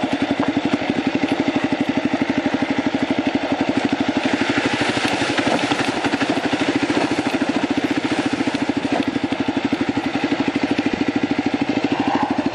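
Kawasaki KLR single-cylinder dual-sport motorcycle engine running with an even, steady pulse, recorded from on the bike. From about four to nine seconds in, water splashes as the front wheel ploughs through a shallow stream crossing.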